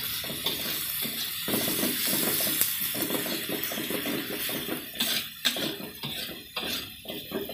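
A metal spatula scraping and clinking against a metal wok as sliced shallots and garlic are stirred, over the sizzle of them frying in oil.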